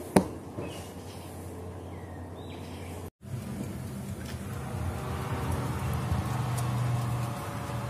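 A single knock, then faint background; after a break about three seconds in, an electric oven running with a steady low hum and a faint whine while the salmon bakes.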